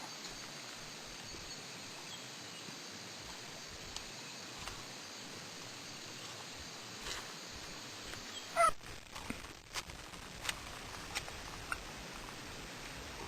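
Faint outdoor ambience: a steady hiss with scattered light ticks, and one short, louder pitched chirp a little past halfway.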